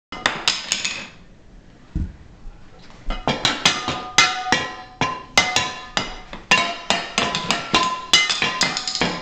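Kitchenware such as pots, pans and glasses struck as improvised percussion, each hit clanking with a short ringing tone. A few hits open it, then a pause with one dull thump, then about three to four ringing strikes a second from about three seconds in.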